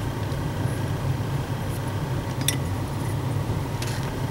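Steady low machine hum of room background noise, with a few faint light clicks about two and a half and four seconds in.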